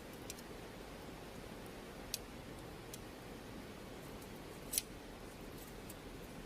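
Campfire crackling: a low steady hiss of burning wood with a few sharp, separate pops, the loudest nearly five seconds in.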